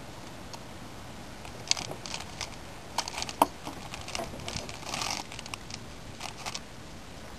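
Plastic bag of Daiwa powdered hera bait crinkling and crackling in the hands as it is opened and tipped out over the mixing bowl. The rustling starts after about a second and a half and comes in irregular bursts, with one sharp crackle near the middle.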